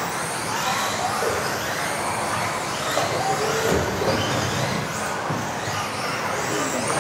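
Several electric RC off-road racing cars running together around an indoor track, their motors whining in overlapping rises and falls as they accelerate and brake, over a steady hiss. A couple of short knocks come about halfway through.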